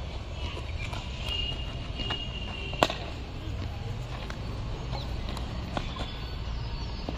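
A cricket ball struck hard in the nets: a single sharp crack about three seconds in, over a steady low outdoor rumble.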